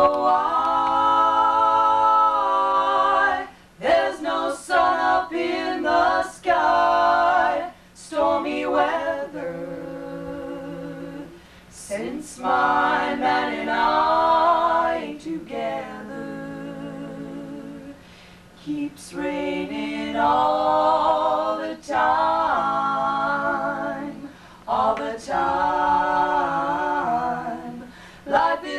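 Three women's voices singing a cappella together, in sung phrases with short breaks between them.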